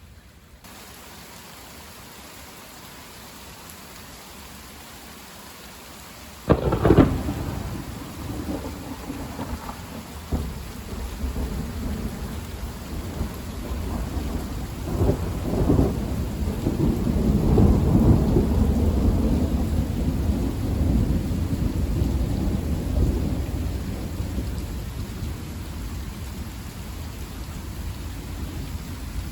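Steady rain during a thunderstorm, then about six seconds in a sudden sharp crack of thunder. Long rolling rumbles follow, with a few more cracks and a swell, and slowly die away.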